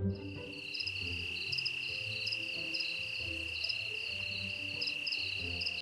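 Insect chirping sound effect, like crickets: a steady high buzz with rapid repeated chirps above it. It starts and stops abruptly, with soft background music underneath.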